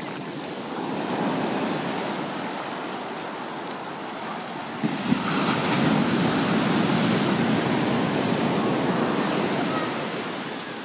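Ocean surf breaking on a sandy beach, with the rushing wash of foam up the shore. A large wave crashes about five seconds in, and the surf stays loud before easing off near the end.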